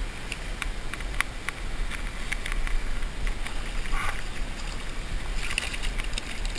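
Wind rumbling on the microphone over running river water, with scattered sharp clicks and a brief splash-like burst about four seconds in.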